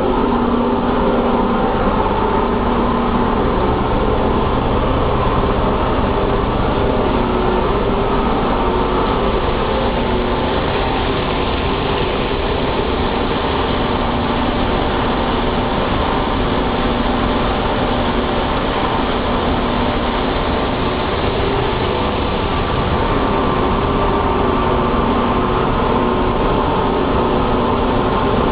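Paper-mill machinery running: a loud, steady mechanical drone with several constant humming tones and no let-up.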